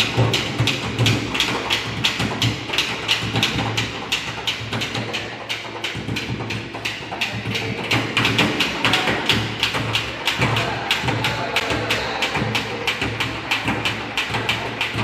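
Improvised percussion played in a steady rhythm: fast sharp taps, about four to five a second, over a recurring low thump.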